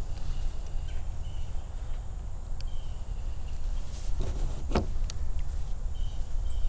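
A spinning rod and reel being cast, with the swish of the rod about four and a half seconds in and a few sharp clicks from the reel. All of it sits over a steady low rumble.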